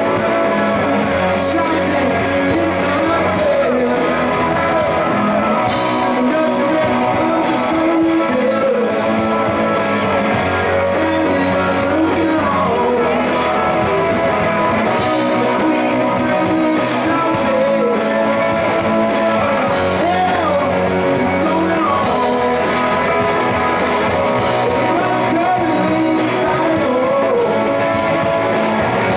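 A rock band playing live on electric and acoustic guitars, with singing.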